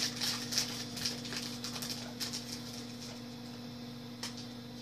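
Rustling and quick light clicks of a football trading-card pack being opened and its cards handled, dense for the first couple of seconds, then sparser with one click near the end, over a steady low hum.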